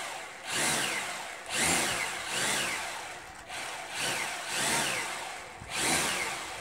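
Syma X8C quadcopter's motors and propellers revving up and down in repeated surges, about one a second, each a rising then falling whine as the throttle stick is pushed up and let back with the drone sitting on the ground.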